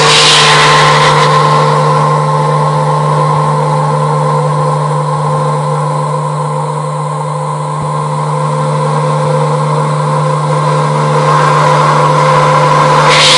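CNC milling machine spindle running a small Iscar EFSI solid-carbide endmill slot-milling a workpiece: a steady hum with a whine and hiss over it. It gets somewhat quieter around the middle and louder again near the end.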